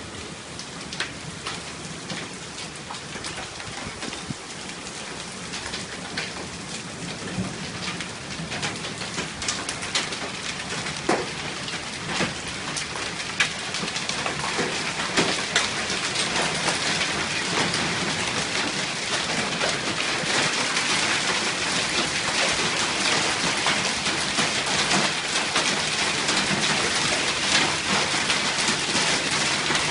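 Hailstorm: a dense patter of hailstones striking hard surfaces, with many sharp individual cracks, building steadily heavier and louder.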